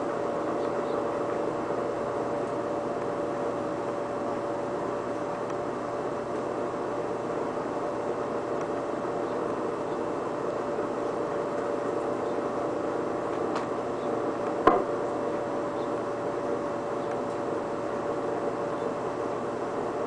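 Air conditioner and fan running: a steady, even whir with a constant hum tone. A single sharp click about three-quarters of the way through.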